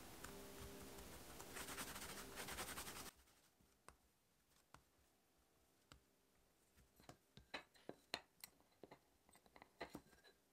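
Faint soft rubbing of hands rolling bagel dough into a rope on a stone countertop, rhythmic for a moment before it cuts off suddenly about three seconds in. After a near-silent stretch, a scatter of faint light clicks and taps comes as the dough is handled.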